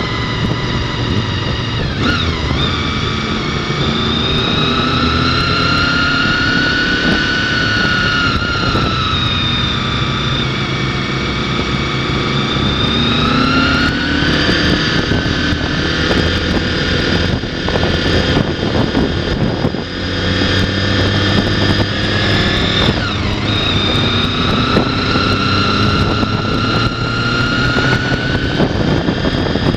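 Honda VFR800's V4 engine running under way, close to the onboard camera, over steady wind and road noise. Its pitch rises and falls slowly with the throttle, with two brief sharp dips in pitch, one about two seconds in and one about 23 seconds in.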